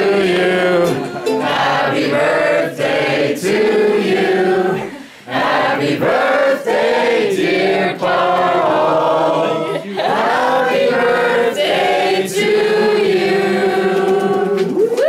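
A group of voices singing a song together, ending on a long held note.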